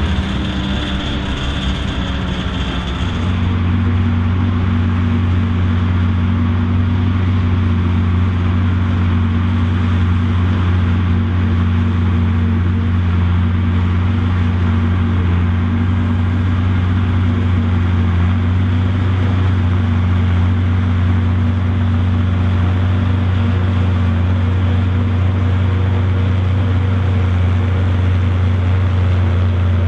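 Ford Super 6 tractor engine running steadily under load, driving a trailed Kemper forage harvester that chops and blows maize, with a Fiat 70-90 tractor pulling the forage wagon alongside. A steady low engine hum with the harvester's noise above it, evening out about three seconds in.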